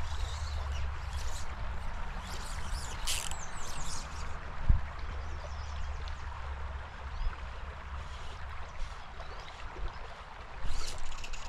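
Spring creek water running steadily over a shallow gravel bed, with a low wind rumble on the microphone for the first several seconds. A single low thump comes a little under five seconds in, and a few short high chirps come about three seconds in and again near the end.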